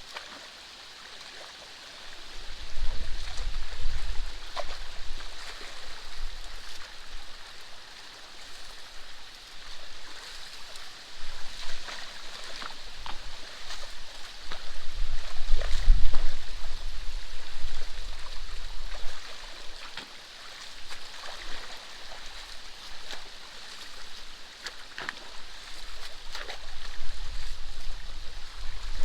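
Canal water trickling and gurgling over and through a beaver dam, with scattered small clicks and splashes. There are dull low rumbles about 3 seconds in and again around 16 seconds in.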